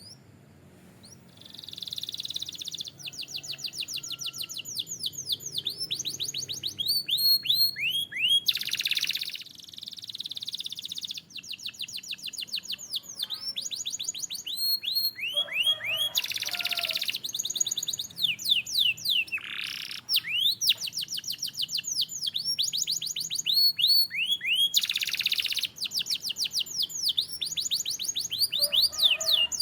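Canary singing: rapid trills of repeated high, down-slurred notes alternating with buzzy rolls, phrase after phrase with brief pauses. The song starts about a second in.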